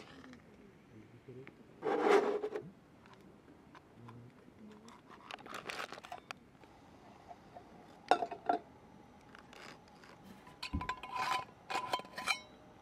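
Thin metal folding stove stand scraped and set into place over a brass alcohol burner on a table, then an aluminium kettle set down on it with a few sharp clinks and a brief metallic ring.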